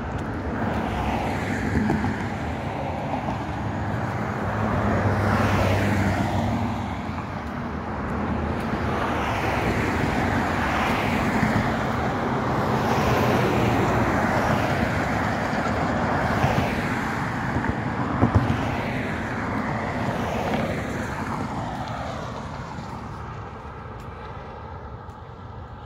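Road traffic: vehicles passing one after another, the tyre and engine noise swelling and fading with each pass, dying down toward the end.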